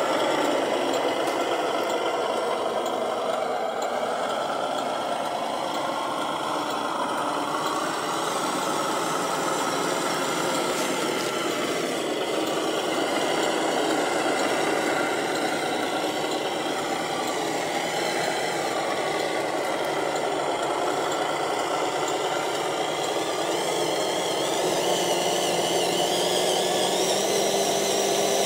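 Radio-controlled scale Scania truck running steadily as it crawls under load through mud, giving a continuous engine-like drone that shifts a little in pitch. Near the end it settles into a steadier tone.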